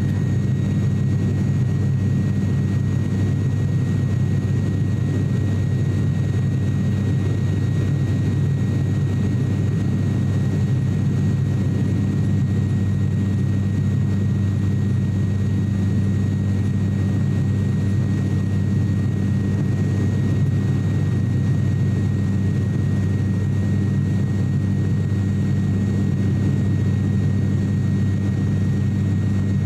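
ATR 42-600 turboprop heard from the cabin at climb power: a steady, even drone from the engine and propeller, with a thin high whine above it.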